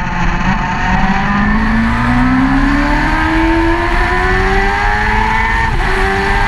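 Racing motorcycle engine heard from an onboard camera, accelerating hard out of a corner: the revs climb steadily, with an upshift about six seconds in. Heavy wind rumble lies under it.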